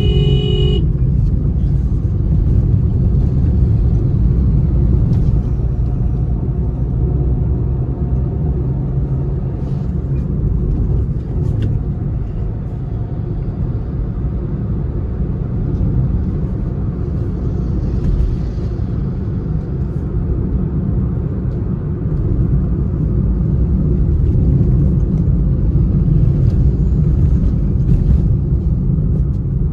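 Steady low rumble of a car's engine and tyres heard from inside the cabin while driving along a road.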